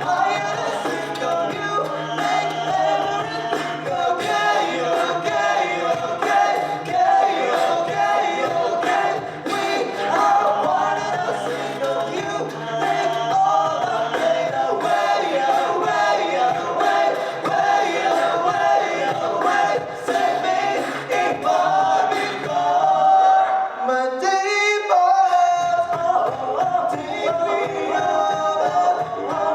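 A cappella group singing in close harmony over a sung bass line, with clicking vocal percussion. Near 24 s the bass cuts out and a voice sweeps sharply upward before the full group comes back in.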